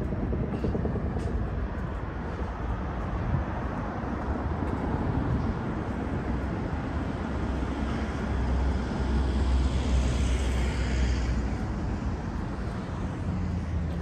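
Street traffic running steadily, with a vehicle passing that swells and fades about eight to eleven seconds in.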